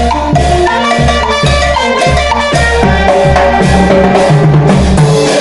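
A small live band of trumpet, alto saxophone, clarinet and drum kit playing a lively dance tune. Held horn notes sit over a steady, even bass-drum beat and cymbals.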